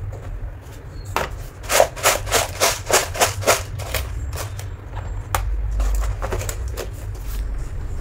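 Masala box and its small spice containers being handled and opened: a quick run of sharp clicks and knocks, about three a second, from about a second in until a little past the middle, with a few more near the end, over a steady low hum.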